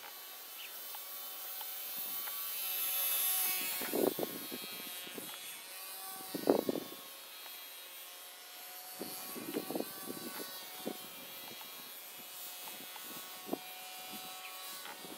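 Small electric motor and propeller of a WLtoys F949 RC airplane buzzing with a high whine that swells louder about two to three seconds in, then carries on fainter and steady. A few short muffled thumps break in, the loudest about six and a half seconds in.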